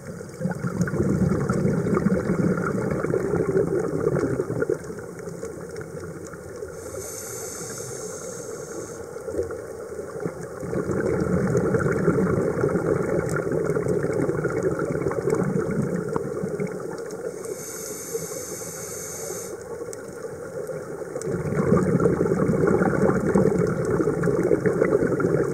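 Scuba breathing through a regulator underwater: two hissing inhalations of about two seconds each, and between them long, louder stretches of bubbling exhalation.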